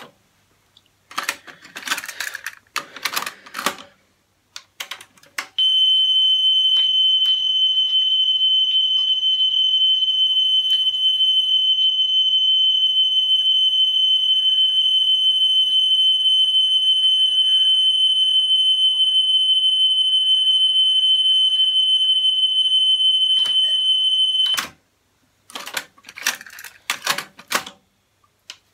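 Cassette deck playing a steady high 3,000 Hz test tone from a calibration tape during head and speed alignment. The tone starts about five seconds in, after clicks and clatter of the tape mechanism being handled, and cuts off suddenly near the end, followed by more clicks.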